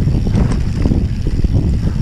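Wind buffeting the action camera's microphone over the rumble of a Banshee Spitfire mountain bike's tyres rolling fast on a dirt singletrack, with frequent small clicks and rattles from the bike over the rough ground.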